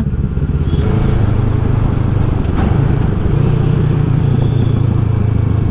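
Motorcycle engine running steadily while riding, with a continuous low hum and road noise.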